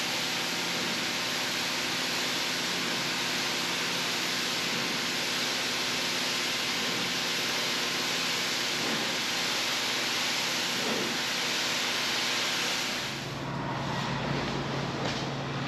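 Rug-washing equipment running with a steady rushing hiss. The hiss cuts off about 13 seconds in, leaving a low steady hum and a few short knocks.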